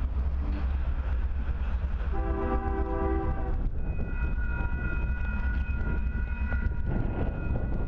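Horn of an approaching Union Pacific train sounding two blasts: a shorter, lower one about two seconds in, then a longer, higher one from about four seconds in, lasting some three seconds. A steady low rumble runs underneath.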